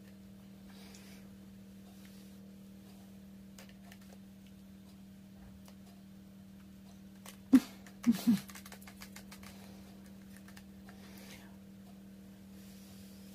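Quiet room tone with a steady low electrical hum and faint small clicks. A little past halfway, two brief voice sounds break in.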